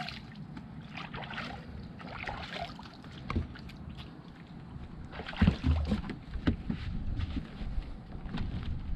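Water sloshing around a small skiff moored at a floating dock, with wind rumbling on the microphone. A few sharp knocks come about halfway through.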